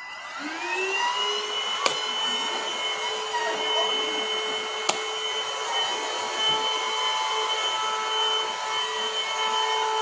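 Russell Taylors VC-22 cordless vacuum cleaner's motor spinning up over the first second, its whine rising in pitch, then running at a steady high whine. Two sharp clicks come about two and five seconds in.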